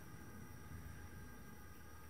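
Faint steady hiss with a low hum from the lit gas forge burner, with no distinct knocks or clicks.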